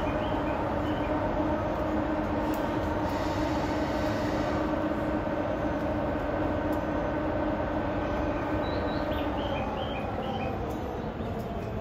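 JNR EF64 electric locomotive idling at a crawl with its traction motor blowers humming steadily, a layered drone of several steady tones. About eight seconds in the highest tone drops out and the hum begins to fade near the end, as the blowers start to shut down.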